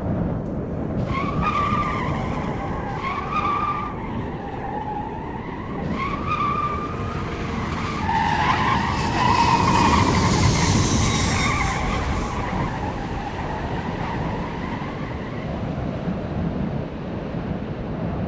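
Repeated tyre-screech squeals, several drawn-out wavering screeches in a row, over a steady low rumble of jet engines and wind.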